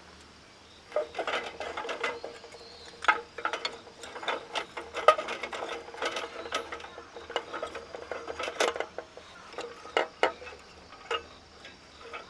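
Small wood fire crackling and popping in a compact tabletop wood stove, with irregular sharp snaps of burning kindling, a few louder than the rest.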